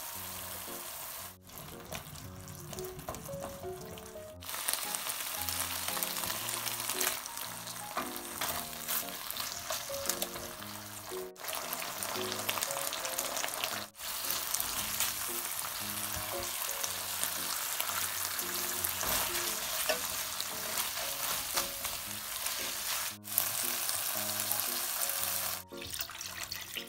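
Diced pork and gochujang sizzling in oil in a deep frying pan while being stirred with a spatula, in several takes that cut off abruptly. Near the end, water is poured into the pan.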